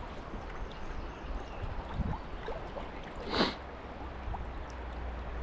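Fast river water rushing steadily, with a low rumble, and one brief louder sound about three and a half seconds in.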